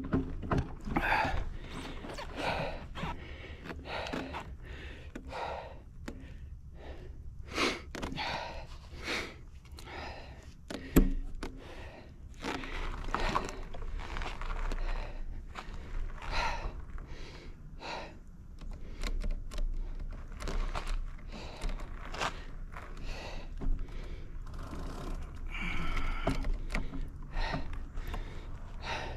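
Mountain bike rider breathing hard while pedalling a dirt trail, over a steady low rumble from the ride. A sharp knock about eleven seconds in.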